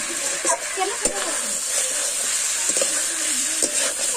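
Chicken pieces sizzling as they are dry-fried bhuna-style in masala in a large metal wok, with a flat metal spatula scraping and knocking against the pan every half second or so as it stirs.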